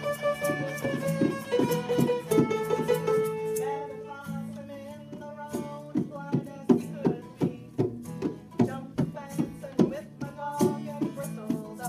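Violin and acoustic guitar playing a fiddle tune together. The violin's last held note ends about three and a half seconds in, and the guitar goes on strumming a steady rhythm of about two strokes a second.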